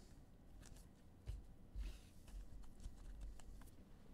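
Faint handling of trading cards: scattered light clicks and a brief rustle, with a couple of soft low thumps a little after a second in and about two seconds in.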